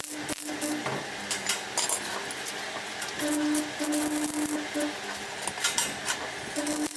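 Metalwork in a fabrication shop: repeated light metal clinks and knocks over a steady hiss, with a low hum that comes and goes.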